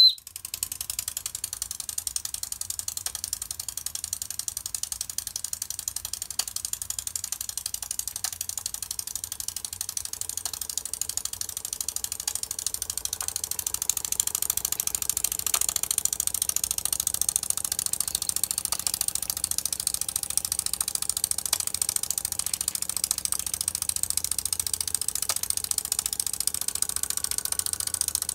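Brass live-steam horizontal stationary engine running fast: a rapid, steady ticking clatter from its cylinder and motion, with a high steam hiss, getting a little louder about halfway.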